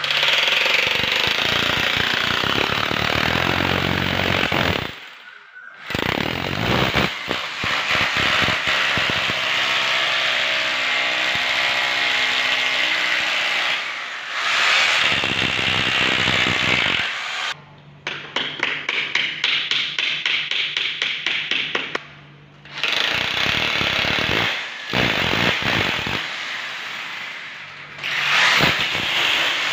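Corded electric drill boring into a UPVC window frame, run in bursts that stop and restart several times. Past the middle it is pulsed in quick short bursts, about four a second.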